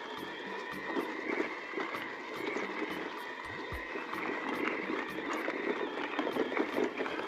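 Hardtail mountain e-bike rolling over a rough off-road track: tyre noise with scattered clicks and rattles, and a faint steady high whine.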